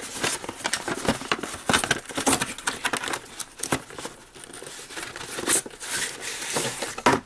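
Cardboard packaging being handled: a white cardboard inner tray scraping and sliding out of the open end of a toy display-case box, with irregular rustling and small knocks of cardboard.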